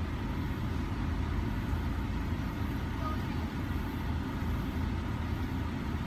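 Car engine idling, heard from inside the cabin as a steady low rumble.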